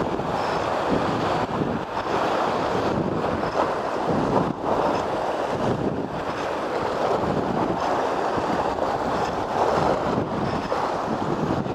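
Sea waves washing and breaking over a rocky shore, a steady rushing with small swells, with wind buffeting the microphone.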